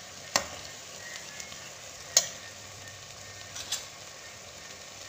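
Rice and peas frying in oil in an aluminium pressure cooker with a steady sizzle, stirred with a steel slotted spoon that knocks sharply against the pot three times.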